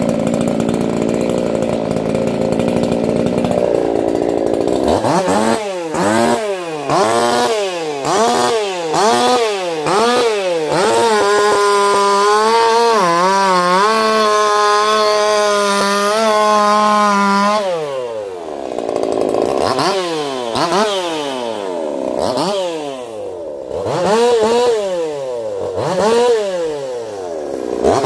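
Echo CS-4910 two-stroke chainsaw, freshly rebuilt with a swapped piston and crankshaft, running. It idles for a few seconds, is then blipped up and down about once a second, and is held at full throttle for about six seconds with the pitch dipping and recovering before dropping back to more quick revs.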